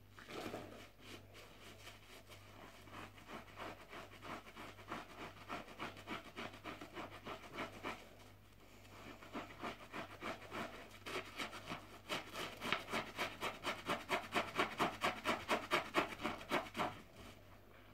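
Wet, soapy bath sponge scrubbed and rubbed by hand in rhythmic strokes. There is a short pause about eight seconds in; after it the strokes come faster and louder, about four a second.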